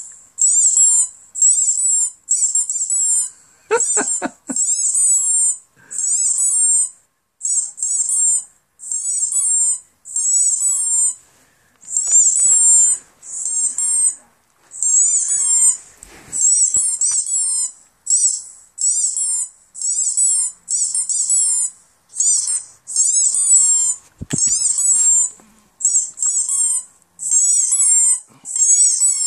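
Recorded squeaky dog-toy sound played through computer speakers: high, warbling squeaks repeating about once a second. A brief lower pitched whine about four seconds in, and a few short knocks, come from the dog reacting.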